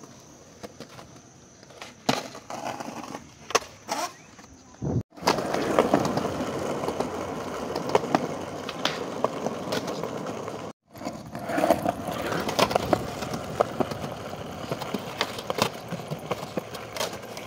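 Skateboard wheels rolling on rough concrete, with repeated sharp clacks of the board and trucks hitting the ground.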